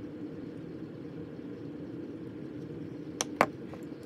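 Steady low background hum, then two sharp clicks close together near the end, the second louder: a precision screwdriver being set down on a desk.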